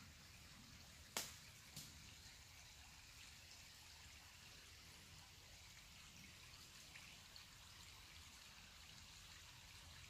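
Near silence: faint steady trickle of a small woodland brook, with two sharp clicks a bit over a second in, about half a second apart, the first the louder.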